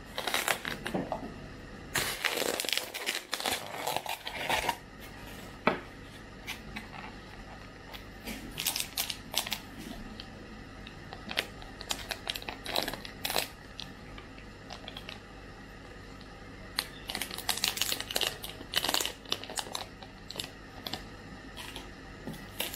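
Thin plastic takeout packaging crinkling and crackling in the hands: a plastic beef-bowl container and its lid being handled and opened, then a small plastic packet of pickled ginger being torn open. The sound comes in irregular bursts with quiet gaps, plus a single sharp click a few seconds in.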